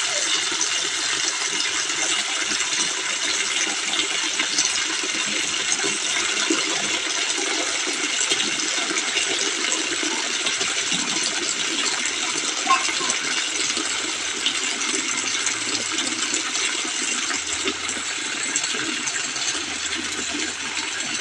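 Tap water pouring steadily into a plastic basin of dried yellow beans as they are washed, with the beans clicking and rattling against each other and the basin.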